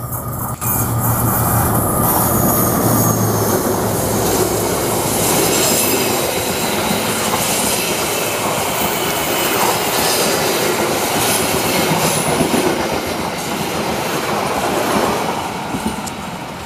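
Passenger train passing close by on a curve: a diesel locomotive's engine hum at first, then the stainless-steel coaches' wheels clattering over the rails with a high flange squeal from the curve. The sound fades near the end as the last coach goes by.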